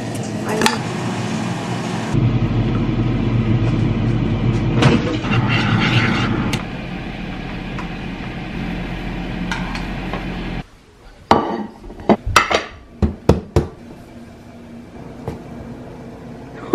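A steady low hum with occasional pan and utensil knocks while cooking on the stove. Then a quieter stretch with a quick series of sharp clicks and taps of a utensil against a glass plate during plating.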